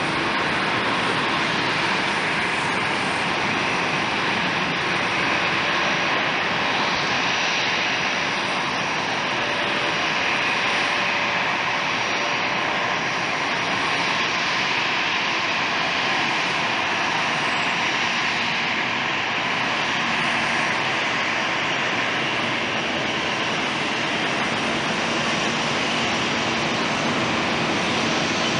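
Twin-turboprop Bombardier Dash 8 running its engines at takeoff power during its takeoff roll: a steady, loud drone of engine and propeller noise with a faint whine.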